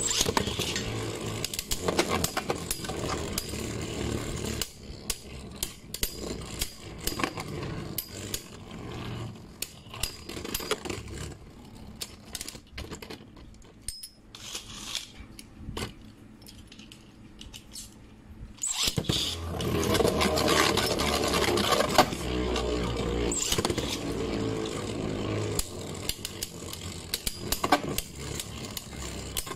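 Beyblade Burst tops, Astral Spriggan and Guilty Longinus, spinning in a plastic stadium: a steady whir with scattered clicks that fades about four seconds in as a top runs down. A long quieter stretch of light clicks follows, then about nineteen seconds in a loud whir starts again as both tops spin, with sharp clacks as they strike each other.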